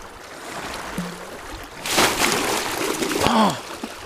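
Heavy splashing in shallow river water begins about two seconds in and lasts about a second and a half: a hooked salmon thrashing at the surface close by. Near the end there is a short falling cry from a voice.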